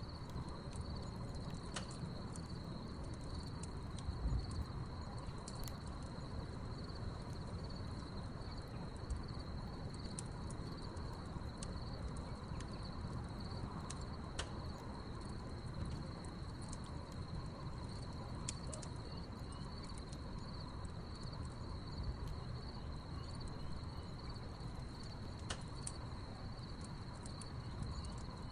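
Crickets chirping in a steady, high-pitched chorus, with scattered small crackles and pops from a burning wood fire over a low, even rumble.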